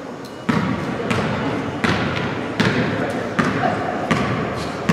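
A basketball is dribbled on a hardwood gym floor, with about six bounces spaced roughly three-quarters of a second apart.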